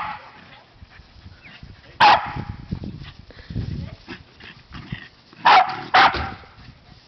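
Pembroke Welsh corgi barking in play: three sharp barks, one about two seconds in and two in quick succession near the end.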